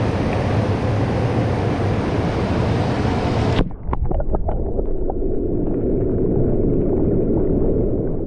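Rushing mountain-stream water, loud and steady. About three and a half seconds in it cuts to a duller, more muffled rush of water, with a few sharp clicks just after the change.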